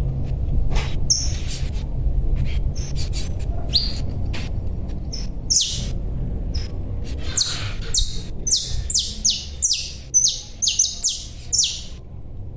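Young papa-capim (yellow-bellied seedeater) giving short, high chirps, which come thick and fast in the second half, over a steady low rumble. Scattered sharp clicks are mixed in among them in the first half.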